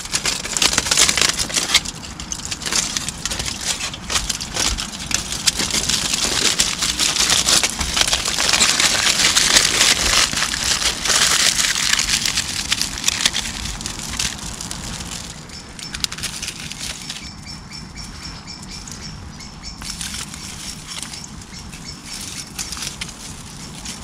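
Aluminium foil crinkling and scrunching as it is wrapped tightly around a potato by hand. It is loudest in the first half and eases off after about 15 seconds.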